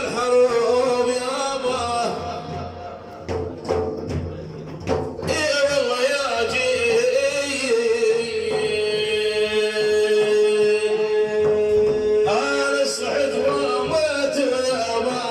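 A man singing an Arabic religious praise song for the Prophet, with a long held note in the middle, accompanied by drum strokes.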